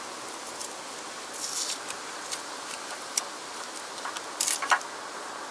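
Hands working a plastic wiring harness: light rustling and a few small sharp plastic clicks, the loudest cluster near the end, as connectors are pushed together.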